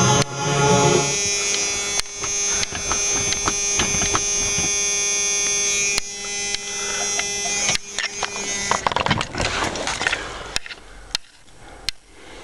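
Starter motor cranking the cold 1990 Ford F-250's 7.3 L IDI diesel, a steady buzzing whine, without the engine catching. The cranking stops about nine seconds in, leaving a few quieter clicks and rattles.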